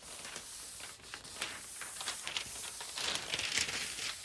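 Adhesive plastic film sheet crinkling and rubbing as it is smoothed down by hand onto a board to push out air bubbles, in short irregular scratchy strokes that grow a little louder about three seconds in.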